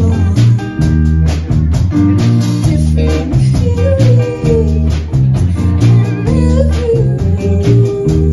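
Live band playing: a woman singing into a microphone over electric guitar, electric bass and strummed acoustic guitar, with a steady bass line underneath.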